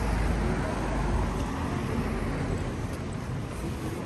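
City street traffic: a motor vehicle's low engine rumble close by, easing off about a second and a half in, over a steady roar of road noise with faint voices of passers-by.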